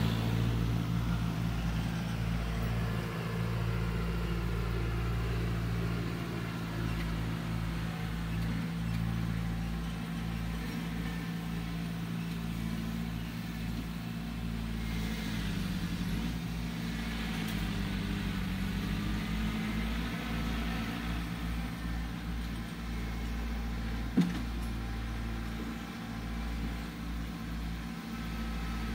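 Engine of earth-moving machinery hauling fill, running steadily out of view; its note sags and rises again about halfway through. A single sharp clank comes near the end.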